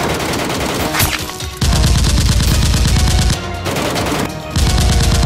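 Two bursts of rapid automatic gunfire: the first starts about a second and a half in and lasts about a second and a half, and the second starts near the end. Background music plays underneath.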